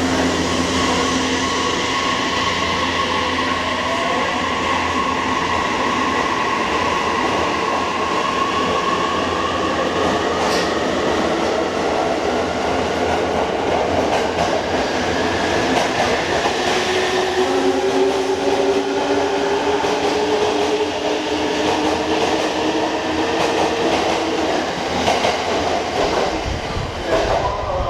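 E259 series Narita Express electric train pulling out, its traction motors whining in steady tones that climb slowly in pitch as it gathers speed, over the rumble of wheels on the rails.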